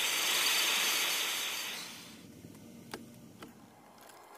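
A strong, even hiss of escaping pressure that dies away about two seconds in, followed by two light clicks.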